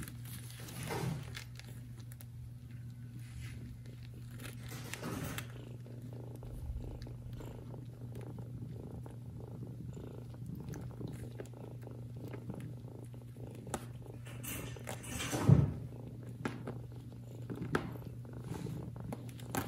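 A cat purring steadily, with soft rustles of fur and bedding and one brief louder noise about fifteen seconds in.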